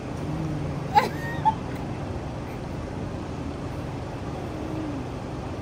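Steady low hum of a car, heard inside its closed cabin, with a short high squeal about a second in and a shorter one half a second later.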